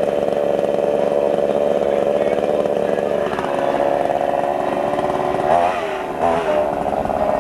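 A chainsaw's small two-stroke engine running steadily, with a few brief wavers in pitch past the middle.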